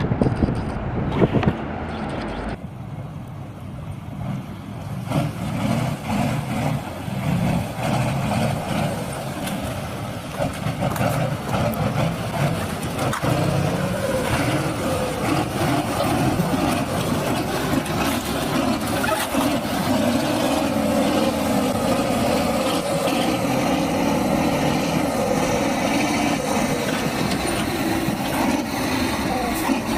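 Heavy vehicle engine running steadily, with an abrupt change in the sound about two and a half seconds in.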